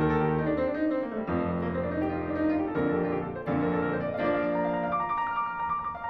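Background piano music: held chords that change about once a second.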